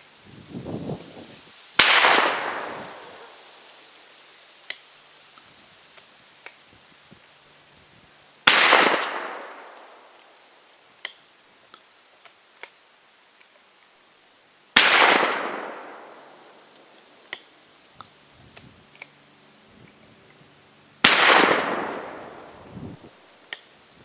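Four blasts from a Rossi 12-gauge single-shot shotgun, about six seconds apart, each followed by a long echo that dies away over a second or more. Between shots come light metallic clicks as the break action is opened, the spent shell pulled and a fresh one loaded and snapped shut.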